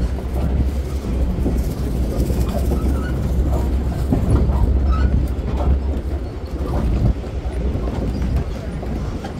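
Boardwalk tram running along the wooden boardwalk: a steady low rumble from its motor and wheels over the boards.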